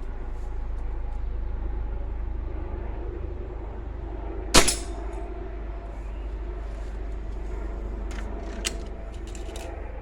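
A single shot from a Remington Express XP .22 break-barrel air rifle about halfway through, a sharp crack with a short ring after it, over a steady low rumble. A much fainter click near the end.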